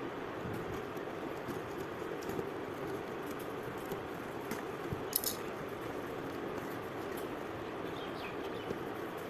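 Faint scraping and rustling of a cardboard parcel being slit open with a utility blade and pulled apart, with a few small clicks, over a steady background hum.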